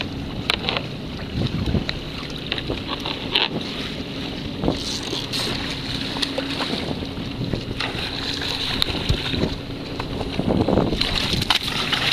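Wind buffeting the microphone over seawater rushing and splashing along the hull of a sailboat under way, with scattered short knocks from handling. The rush swells louder twice, about halfway through and again near the end.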